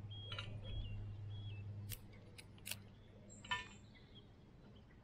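A few sharp snaps and clicks of small sticks as a homemade hobo stove is lit with cotton wool and damp wood, over a low steady hum that stops after about two seconds.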